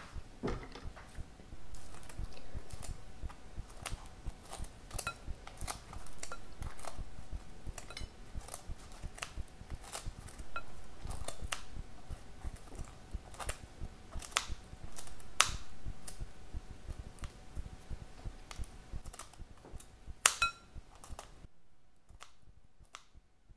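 Crisp cooked bacon being snipped into pieces with kitchen shears over a mixing bowl: irregular sharp snips and crunches, one or two a second, stopping near the end.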